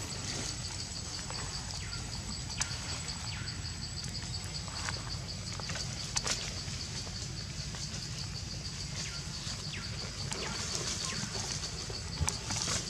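Outdoor ambience dominated by insects chirring in a steady, fast, even pulse, with a few faint short calls and scattered sharp ticks, a cluster of them near the end.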